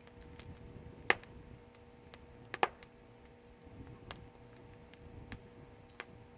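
Firewood burning in a Korean agungi firebox, with scattered sharp crackles and pops over a low rumble of the fire; the two loudest pops come about a second and two and a half seconds in.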